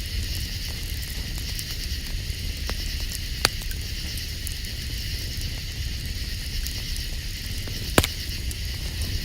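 Campfire crackling with small ticks and two sharp pops, one about three and a half seconds in and one near the end, over a steady chirring of night insects and a low rumble.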